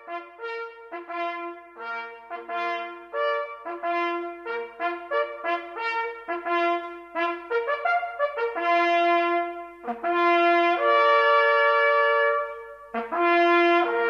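Hunting horn playing a fanfare that moves between a few fixed natural-horn notes. It opens with quick short notes, then from past the middle holds longer notes, with a brief break near the end.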